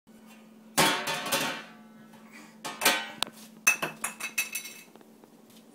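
A toddler banging on the lid of a stainless steel pedal trash can: metallic clanks with a short ring, in three bursts of quick strikes. A faint steady hum runs underneath.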